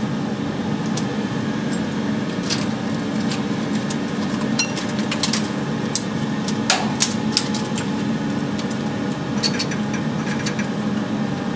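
Scattered metallic clicks and small knocks as a 35mm film projector's film path is threaded by hand, the loudest knock about two-thirds of the way through, over a steady hum of projection-booth machinery and ventilation.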